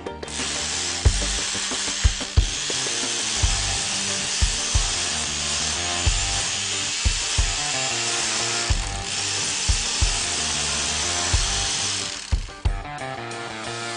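Bosch GBH 2-24 RE Professional hammer drill running under load, a dense steady drilling noise that stops about twelve seconds in, over background music with a steady beat.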